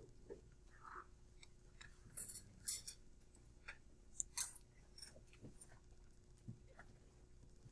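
Faint, irregular rubbing and squeaking of a cloth wiping a whiteboard, in short scattered strokes over a low steady hum.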